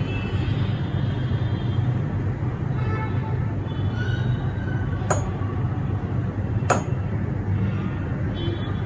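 A steady low hum and rumble, with two sharp metallic clicks about five and nearly seven seconds in as a tin can knocks against the rim of a stainless steel bowl.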